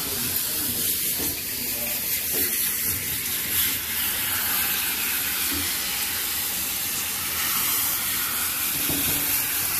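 Water hissing steadily from a handheld hose spray nozzle as it rinses a golden retriever's wet coat.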